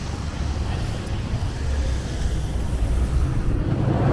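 A big snow plow truck's engine running steadily, a low drone close by.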